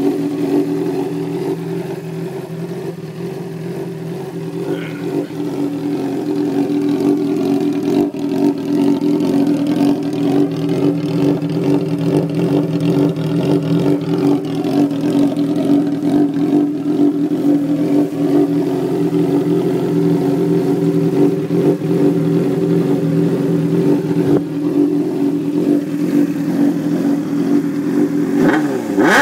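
Honda CBR600RR inline-four engine in a custom ATV idling steadily through its exhaust. Near the end the revs begin to rise as the throttle is opened.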